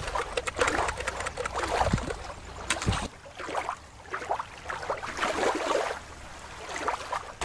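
Shallow water lapping and trickling over rocks, with small splashes and a low rumble. About three seconds in, it switches abruptly to a different, thinner-sounding recording of moving water.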